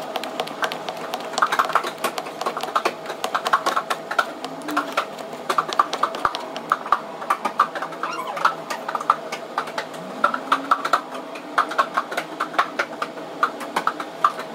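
Irregular light taps and clicks from dumpling-making by hand: a wooden rolling pin on a floured board, and dough and filling being handled. Under them is a steady faint hum.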